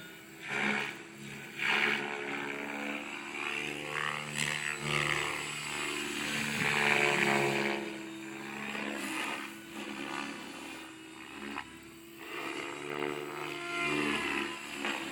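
Electric RC helicopter with Edge rotor blades, powered by a 10S battery pack, in flight. Its motor and rotor whine rises and falls in pitch, with surges of blade noise as it swings through manoeuvres and passes.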